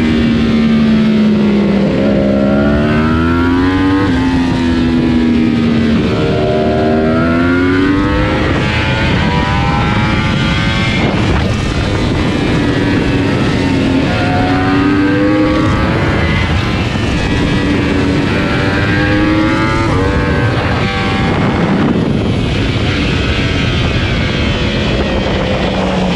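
Sport motorcycle engine at racing speed on track. Its note climbs and drops back several times as the rider shifts gear and slows for corners, over a steady rush of wind noise.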